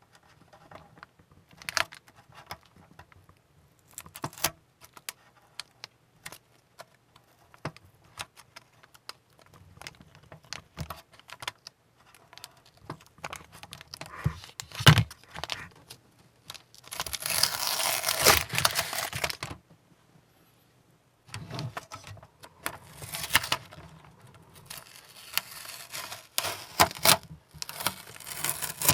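Masking tape being peeled off a freshly painted plastic ship model hull, tape crinkling and tearing amid small clicks and taps of handling. There are denser rustling stretches near the middle and through the last third, with a short pause between them.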